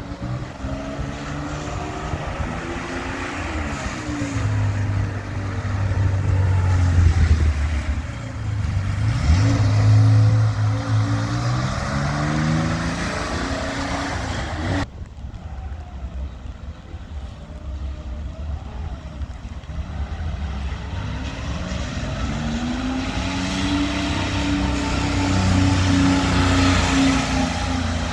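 Engines of historic rally cars driving off and past one after another, each one's pitch rising and falling as it goes by. The sound breaks off suddenly about halfway through, then another car comes up and passes.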